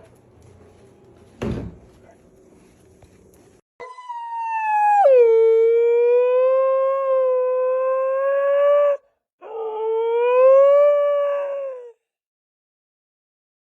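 A dog howling: two long howls. The first drops in pitch soon after it starts and is then held for about four seconds; the second is shorter, rising and falling gently. A single knock comes before them, about a second and a half in.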